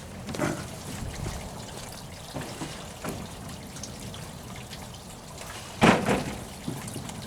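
Water trickling steadily in a koi pond, with a few light knocks and one brief loud clatter about six seconds in.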